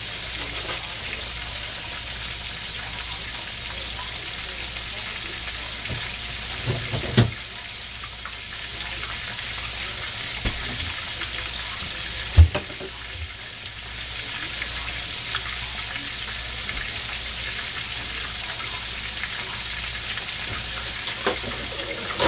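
Breaded chicken pieces deep-frying in hot oil in a cast iron skillet, a steady sizzle of bubbling oil. Two dull thumps cut through it, one about seven seconds in and a louder one about twelve seconds in.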